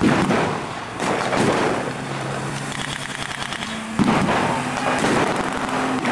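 Several sharp blank gunshots at irregular intervals over a military vehicle's engine running steadily, the engine's pitch rising near the end as it drives closer.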